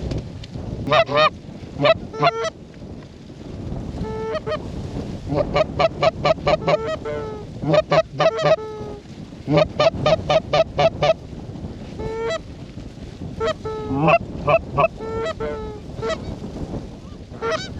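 Geese honking in quick runs of short calls, several a second, coming in bursts with brief pauses between.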